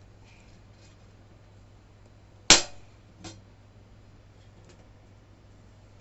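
A single sharp knock about halfway through, loud and brief, fading within a fraction of a second, followed by a much softer knock just under a second later.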